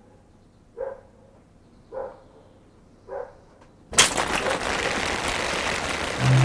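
A short soft sound repeating about once a second, then, about four seconds in, water spray starting with a sudden loud hiss that carries on steadily.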